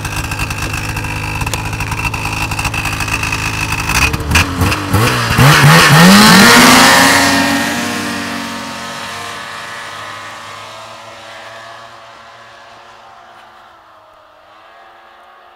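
Snowmobile engine running at idle close by, then revved hard about four seconds in, its pitch climbing as the sled pulls away; the engine note then fades steadily as it moves off into the distance.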